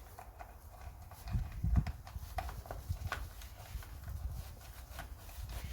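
Scattered light clicks and taps of screws and metal parts being handled and fitted on a Stihl 028 AV chainsaw during reassembly, over a low rumble that swells briefly between one and two seconds in.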